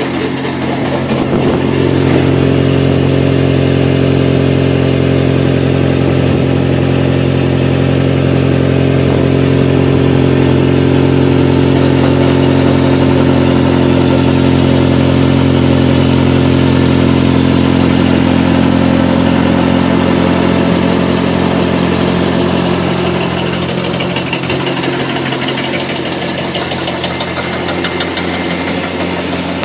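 1989 Dodge Caravan Turbo LE's 2.5-litre turbocharged four-cylinder engine idling at a steady pitch, a little quieter over the last several seconds.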